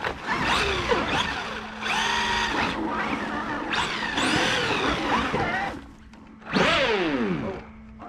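Electric motors of Traxxas X-Maxx and Maxx RC monster trucks whining as they rev up and down while driving, with a sharp burst of throttle about three-quarters of the way in whose whine falls away quickly as the truck slows.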